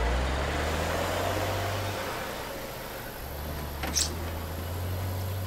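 A vehicle engine running with a steady low hum, which drops away about two seconds in and comes back about a second later. A short sharp click about four seconds in.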